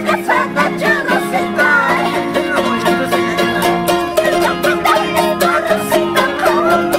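Charangos strummed fast and continuously in a driving tinku rhythm, with high voices singing along over the strings.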